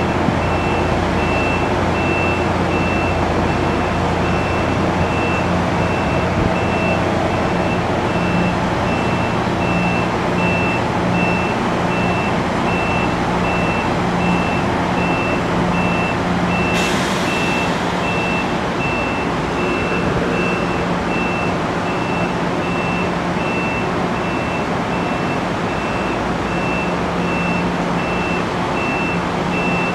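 NJ Transit Arrow III electric multiple-unit train standing at the platform, its equipment humming steadily, with a high beep repeating evenly throughout. About seventeen seconds in, a sudden hiss of released air starts and fades over a few seconds.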